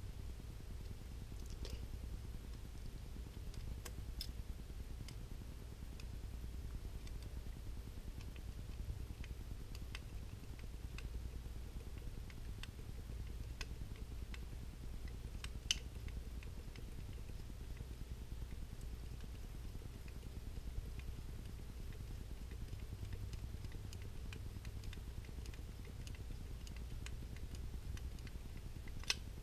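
A small screwdriver working screws out of a Ruger Vaquero revolver's steel frame: scattered faint metal clicks and ticks over a steady low hum, with the sharpest clicks about halfway through and near the end.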